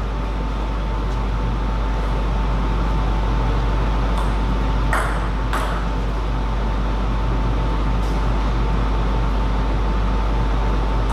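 A few sharp clicks of a table tennis ball striking bat and table, spaced out over several seconds, under a steady loud hum and hiss with a thin high tone.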